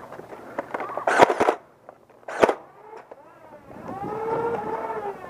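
Flywheel motors of a LiPo-rewired Nerf Stampede spinning up, a whining hum that rises and falls in pitch near the end. Earlier there are a few loud sharp knocks about one and two and a half seconds in.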